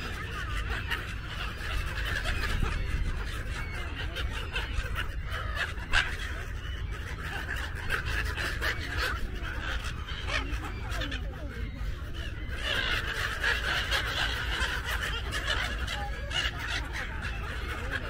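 A large flock of gulls calling, many short harsh calls overlapping without a break and growing louder about two-thirds of the way through, over a steady low rumble. A sharp knock stands out about six seconds in.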